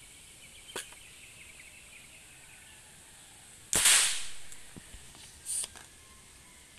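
Homemade marble gun fired once, a little past halfway: a sudden sharp burst that fades away over about a second. A light click comes near the start, and a shorter, fainter burst follows about a second and a half after the shot.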